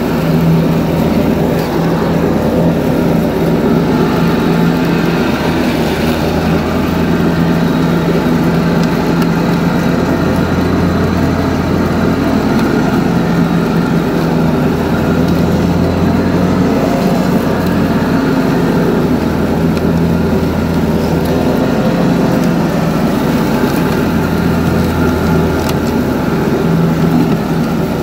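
John Deere 445 garden tractor running with its 60-inch mower deck engaged, cutting wet grass. A steady engine drone, with a deeper hum that swells and fades every few seconds.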